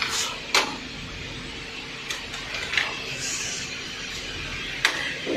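About four sharp clicks and knocks, a second or more apart, with a brief rubbing hiss in the middle, from handling the sliding table saw's aluminium crosscut fence and its extension ruler.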